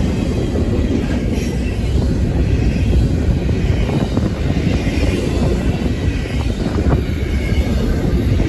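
Freight train's double-stack container well cars rolling past close by: a steady heavy rumble of steel wheels on rail, with a faint high wheel squeal above it.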